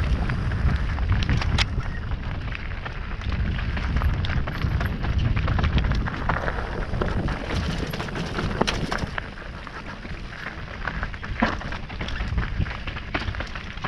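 Wind buffeting the microphone of a mountain-biker's action camera during a descent, over the clicks and knocks of the bike rattling across rough trail. The rumble eases about halfway through.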